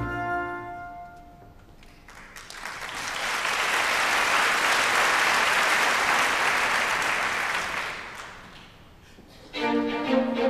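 An orchestral chord dies away, then audience applause swells, holds for several seconds and fades out. Near the end the orchestra starts playing again.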